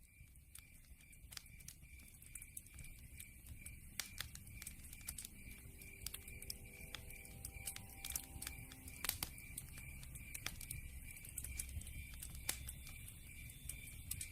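Campfire crackling: irregular sharp pops and snaps over a low rumbling hiss, fading in from silence over the first couple of seconds. A faint, high, even chirp repeats a few times a second underneath.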